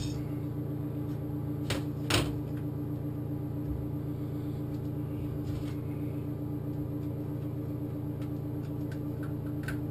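A steady, low electrical hum, like a running kitchen appliance, with two sharp knocks about two seconds in, likely from handling the honey jar, and a faint click near the end.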